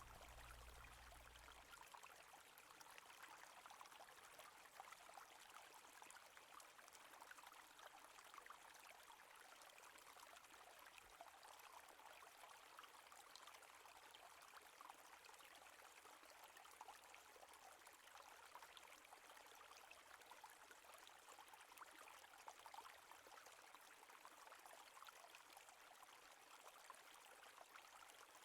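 Faint, steady sound of flowing stream water trickling.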